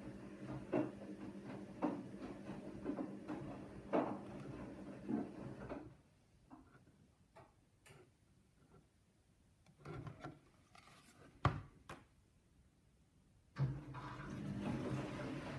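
Scattered soft knocks, clicks and rubs from a painting board and plastic tray being handled and tilted, over a steady low hum that drops out about six seconds in and comes back near the end.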